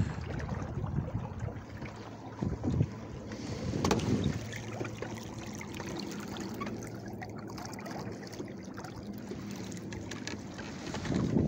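Wind buffeting the microphone over water washing along the hull of a small sailboat under sail, the gusts strongest at the start and again near the end.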